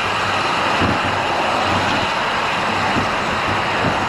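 Steady rushing noise of road traffic and wind while cycling along a busy multi-lane highway, even throughout with no single vehicle standing out.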